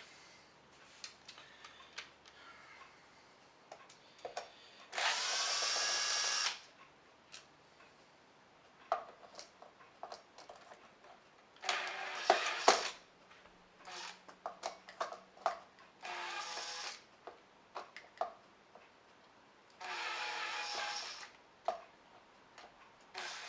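Cordless electric screwdriver running in about five short bursts of a second or two, the first rising in pitch as it spins up, backing out the screws that hold the fan cover on a Hoover Senior vacuum cleaner. Clicks and taps of handling screws and parts come between the bursts.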